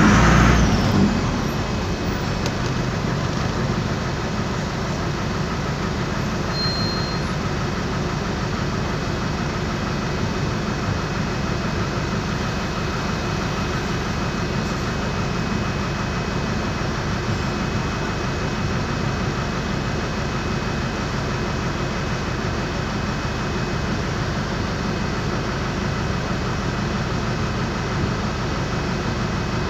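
Air-cooled Deutz diesel engine of an Otokar M-2000 bus idling steadily, heard from inside the bus, after a louder noise in the first second.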